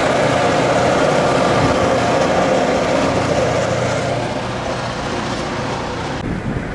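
Iowa Interstate diesel freight locomotives running past at close range, their sound fading from about four seconds in as the car drives away, leaving car road noise.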